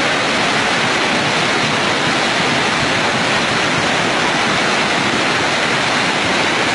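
Fast, muddy floodwater rushing in a torrent, a loud steady noise with no breaks.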